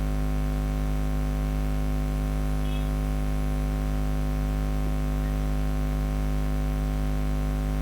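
Steady electrical mains hum with a stack of even overtones over a background hiss, unchanging throughout.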